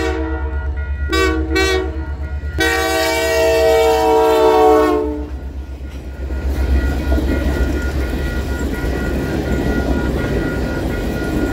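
Locomotive horn of the Canadian Pacific Holiday Train sounding at a grade crossing: the end of one blast, two short toots, then a long blast that stops about five seconds in. The crossing bell rings steadily throughout. After the horn, the cars roll past with a steady rumble and wheel clatter over a deep engine drone.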